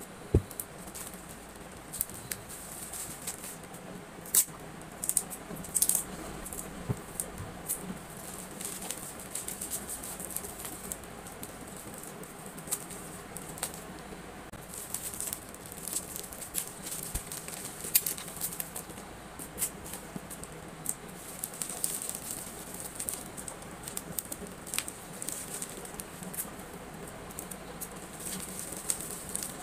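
Small items and plastic packaging handled by hand while packing orders: a steady run of light clicks, taps and rustles with no speech.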